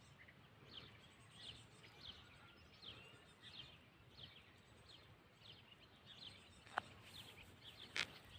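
Faint bird chirping: short, falling chirps repeated about twice a second, with two sharp clicks near the end.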